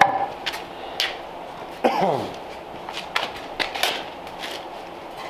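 Footsteps on a concrete floor with scattered sharp knocks and clunks as a wheel and tire are handled, and one short falling squeak about two seconds in.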